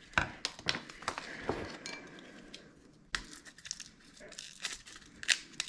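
Dried chili pods crackling and crinkling as hands tear them open and pull out the seeds: a string of irregular dry crackles with a few sharper snaps.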